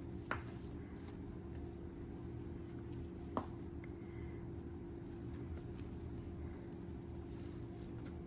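Faint clinks and ticks of a tangled beaded necklace and its metal chain being handled while being untangled, with two sharper clicks, one just after the start and one about three and a half seconds in, over a steady low hum.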